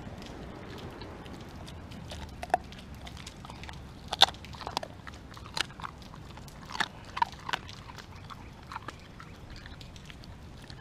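A pit bull–husky mix dog chewing a raw chicken carcass: irregular sharp crunches as it bites into the meat and bone, the loudest about four seconds in.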